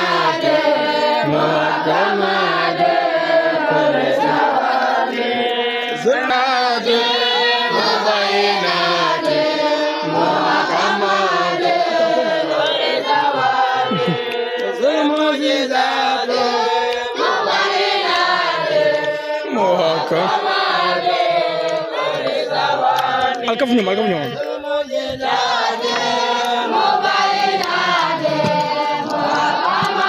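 A group of voices, among them children's, chanting together in a continuous melodic chant.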